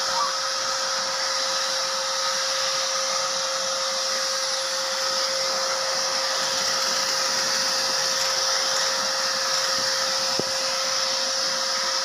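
BJ 1623 wet-and-dry canister vacuum cleaner running steadily, a constant motor whine over the rush of air drawn through its hose nozzle as it sucks dust off a screen edge.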